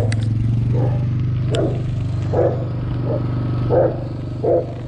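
A dog barking over and over, roughly one bark every three-quarters of a second, over a steady low motor hum.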